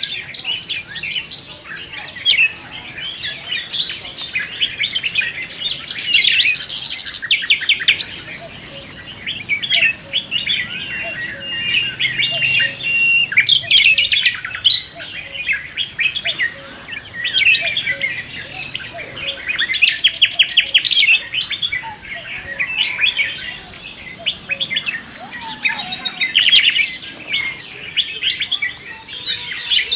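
Many birds chirping and calling over one another in a morning chorus. Three times, about 7, 14 and 20 seconds in, a loud, fast trill of rapid repeated notes stands out.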